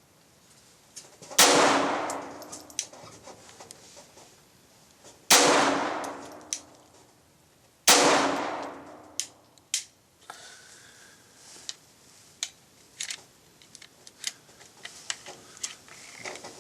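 .22 LR pistol, a Glock 22 frame fitted with a Tactical Solutions TSG-22 conversion slide, firing three single shots, the second about four seconds after the first and the third about two and a half seconds later, each with a long echoing tail. Faint clicks and rattles follow after the third shot.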